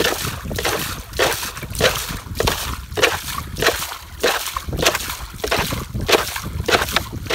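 Water being bailed out of a leaking wooden boat with a plastic container: a quick scoop-and-splash repeated about every two-thirds of a second.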